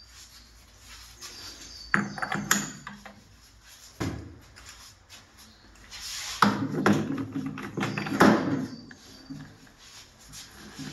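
Metal transmission parts knocking and clinking as a splined gear assembly is handled and set down into the aluminium case of a 6T41 six-speed automatic transaxle. A sharp knock about two seconds in and another about four seconds in, then a run of clattering metal contacts from about six to nine seconds in.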